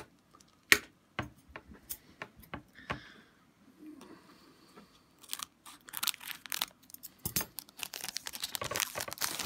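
Foil wrapper of an Upper Deck Portfolio hockey card pack crinkling and tearing as it is opened by hand: a few sharp crackles at first, then a longer stretch of dense crinkling in the second half.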